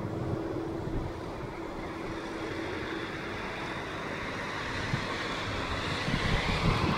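Airbus AS355F2 Ecureuil 2 helicopter sitting on the ground with its rotors turning slowly: a steady high turbine whine from its twin Allison C20F engines and the swish of the blades, with gusts of wind on the microphone.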